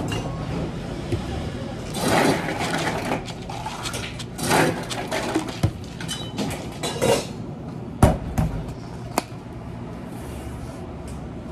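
Barista handling clatter at a café counter while topping an iced frappe and fitting its plastic dome lid: scattered clicks, knocks and brief rustling, the sharpest knock about eight seconds in.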